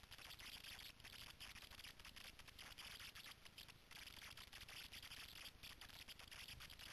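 Near silence: a faint steady hiss with rapid fine crackling, the handling and rubbing noise of a small camera's microphone carried at a run.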